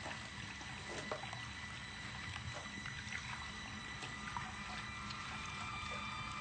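Water in a bathtub: gentle splashing and scattered drips as someone moves in the bath.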